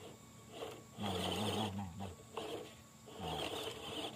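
Electric motor and gearbox of an RC scale crawler running in two bursts, about a second in and near the end, with a low wavering whine over a high hiss.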